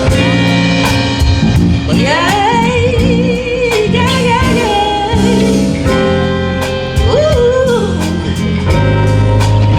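Band playing a song's intro, with a singer's wordless vocal runs from about two seconds in, wavering up and down over the instruments.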